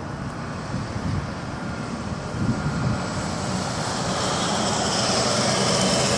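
Pickup truck driving past close by, its engine and tyre noise growing steadily louder as it nears, loudest near the end.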